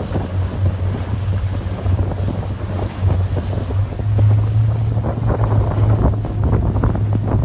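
Wind noise buffeting the microphone over the steady low drone of a chase boat's motor and the rush of water alongside.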